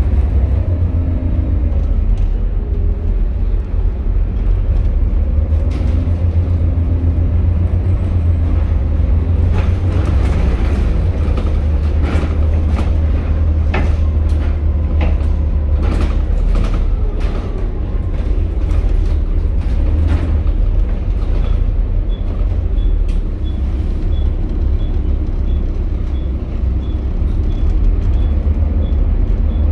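Volvo B7TL double-decker bus heard from inside the passenger saloon while it drives: its six-cylinder diesel engine gives a steady low rumble. Through the middle stretch there is a spell of rattles and knocks from the body and fittings, and a faint regular ticking comes in the last few seconds.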